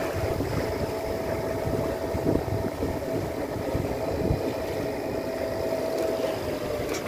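Sailing yacht's inboard engine running steadily under way, with a steady whine that drops a little in pitch near the end.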